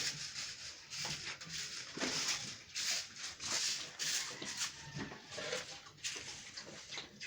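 Pigs in a pen snuffling and shuffling about, a busy run of short, irregular noisy sounds.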